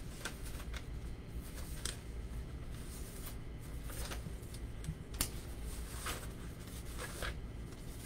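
Sheets of paper rustling and flapping as a stack is leafed through and shuffled, in short scattered rustles over a low steady hum.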